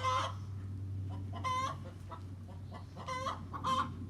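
Backyard chickens calling: four short, pitched squawks with pauses between them.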